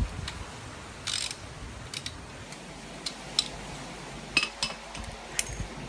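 Irregular light clicks and clinks of small metal parts and hardware being handled, about seven in all, over a steady low hiss.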